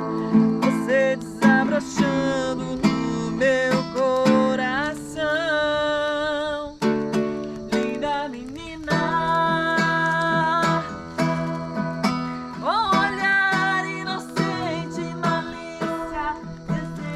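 Music: an acoustic guitar playing with a voice singing over it.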